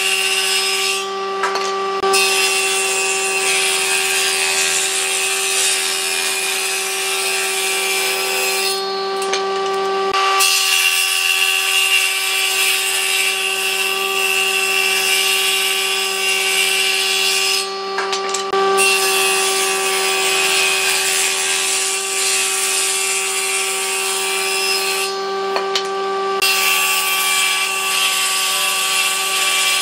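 A power tool running steadily as it cuts or abrades wood, with a constant motor whine under a harsh hiss of the material being worked. The cutting noise drops away briefly four times, about once every eight seconds, while the motor keeps running.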